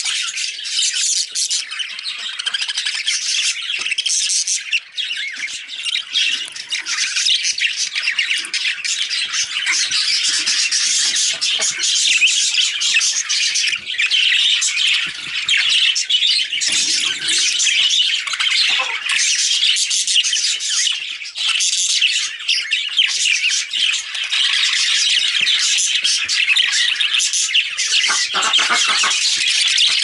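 Caged budgerigars chattering and squawking nonstop, a dense stream of short, high, scratchy calls.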